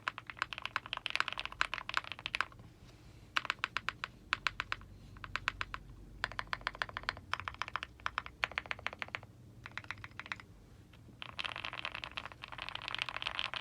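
Typing on an Owlab Mr. Suit mechanical keyboard with BCP switches, an aluminium plate, a fully foamed case and GMK keycaps: bursts of rapid keystrokes broken by short pauses, with the densest run near the end.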